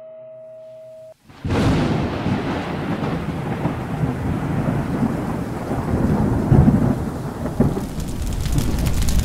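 A held musical tone stops about a second in, and a thunderstorm sound effect comes in suddenly: rumbling thunder over steady rain, swelling and easing.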